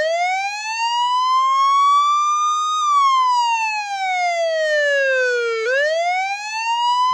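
Police siren wailing: one tone climbs for about three seconds, slides back down for about three, then starts climbing again.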